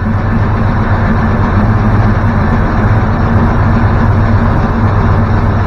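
Chevrolet Vortec 454 big-block V8 running steadily, just fired up on a homemade standalone wiring harness with its ignition circuit jumpered by an alligator clip.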